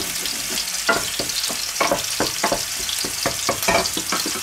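Veal steak sizzling as it fries in oil in a pan, with a wooden spoon stirring and knocking in the steel pot beside it, giving a rapid, irregular run of clicks and knocks over the steady sizzle.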